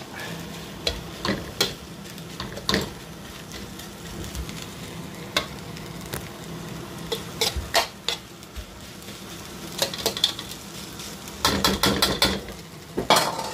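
Egg fried rice being stir-fried in a frying pan: a metal spatula scrapes and taps against the pan in irregular strokes over a steady sizzle, with a quicker run of scrapes near the end.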